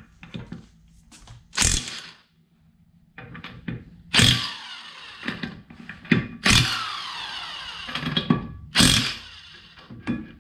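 Corded electric impact wrench hammering wheel lug nuts loose in about four short bursts. After each trigger release the motor whines down freely, with no electronic brake.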